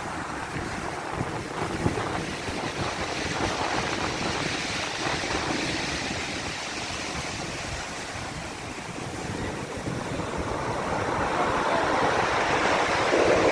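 Black Sea waves washing in, a steady wash of surf that swells louder near the end as a wave rolls in, with wind on the microphone.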